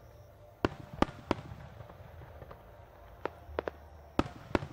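Aerial firework shells in a starmine display bursting with about eight sharp bangs, in two quick clusters: one within the first second and a half and one in the last second and a half.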